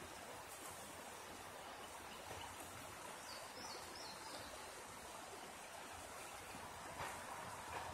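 Steady sound of a river flowing, with a few short high chirps a little past the middle and a brief rustle near the end.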